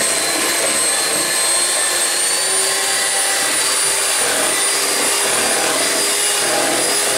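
Electric hand mixer running at a steady speed, its twin beaters whisking eggs and sugar in a plastic bowl toward a stiff foam. A constant high motor whine sounds over the churning of the beaters.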